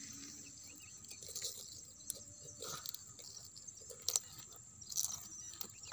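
Faint outdoor ambience with a steady high insect drone, and a few light clicks and rustles as hands work a swallowed hook out of a snakehead fish's mouth.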